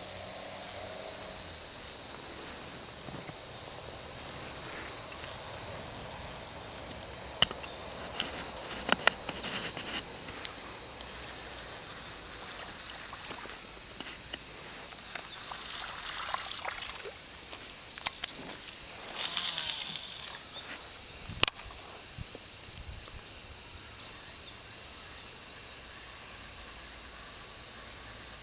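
A steady high-pitched chorus of insects, with a few short sharp clicks and knocks partway through, the sharpest about two-thirds of the way in.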